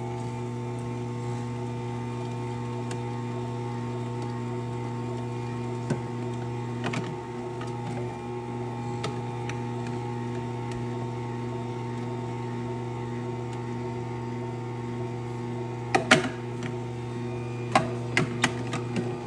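Electric juicer's motor running with a steady hum. A few sharp knocks come through it, most of them in a cluster near the end.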